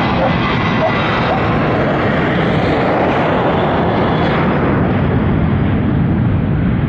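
Jet engines of a Southwest Boeing 737 at takeoff power: a loud, steady rush of noise whose highest hiss slowly fades toward the end.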